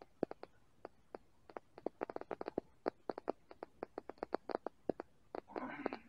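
Hands working a rubber bicycle inner tube at the patch spot: many small irregular clicks and taps, some in quick runs, and a short scraping rustle about five and a half seconds in.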